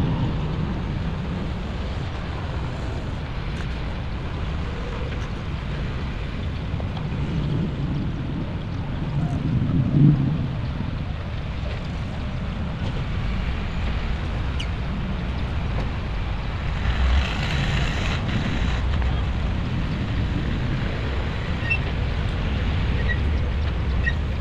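Steady low rumble of heavy machinery running, with a brief louder bump about ten seconds in and a short hiss around seventeen seconds.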